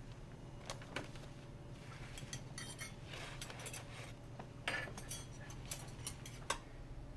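Small clinks and taps of cutlery being laid on a diner table, with a few sharper knocks, the loudest about two-thirds of the way in and another near the end, over a low steady hum.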